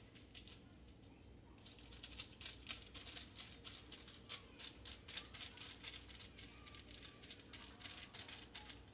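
Light, irregular crackling and ticking, several a second, starting about a second and a half in, as sticky dough spread with cinnamon-sugar filling and crushed pecans is rolled up by hand.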